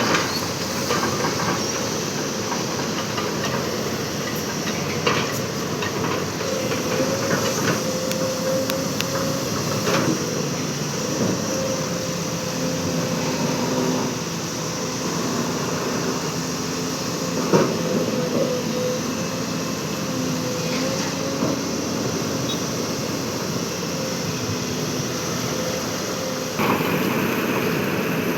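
Excavator at work: its engine runs steadily under a whine that wavers slightly in pitch, with a few sharp metallic clanks, the loudest about two-thirds of the way through. The sound gets louder shortly before the end.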